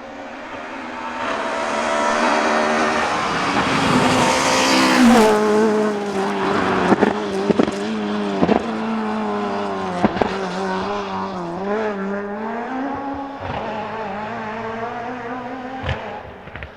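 Ford Escort rally car engine at high revs, growing louder as it nears, then dropping sharply in revs as the driver lifts off. Several sharp cracks follow on the overrun, and the engine fades away near the end.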